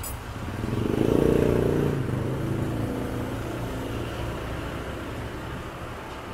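A motor vehicle's engine swells and fades over about two seconds, loudest a second or so in, over a steady low hum.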